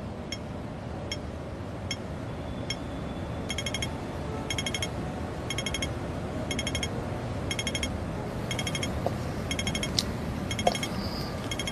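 Steady low noise under a regular light clicking, about one and a half clicks a second, that becomes louder and fuller about three and a half seconds in.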